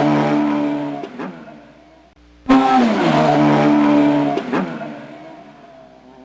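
Motorcycle exhaust revving in two bursts: each starts suddenly loud with the engine speed dropping, gets a quick throttle blip, then dies away.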